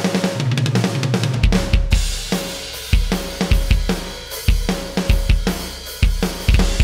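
Roland TD-30 electronic drum kit heard through its module with heavy room ambience mixed in. A quick fill of rapid strokes leads into a crash about two seconds in, then a groove of kick, snare and cymbals, each hit trailed by room reverb.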